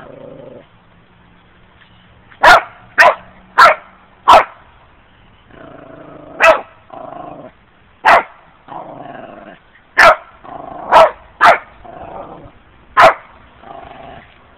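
A dog barking in about ten sharp single barks, with lower, drawn-out growling between them.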